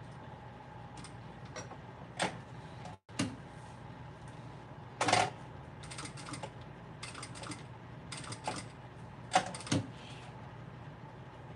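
Sewing machine stitching around the edge of a bookmark in short, slow bursts of a few stitches, each burst a quick run of clicks, over a steady faint hum.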